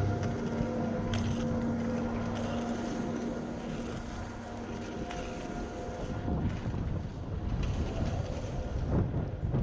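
Skis sliding and scraping over snow, with wind buffeting the microphone. A steady machinery hum from the chairlift terminal fades out over the first few seconds.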